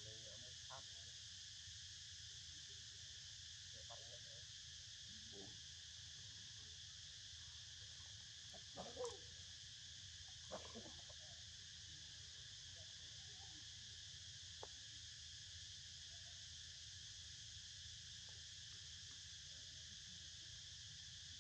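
Faint, steady drone of insects, with a few brief, faint short sounds over it, the most noticeable about nine and ten and a half seconds in.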